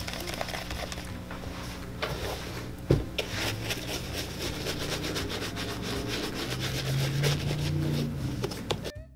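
Small bristle dauber brush scrubbing saddle soap lather into the leather upper of a black cap toe oxford, in quick, steady strokes. There is a single knock about three seconds in.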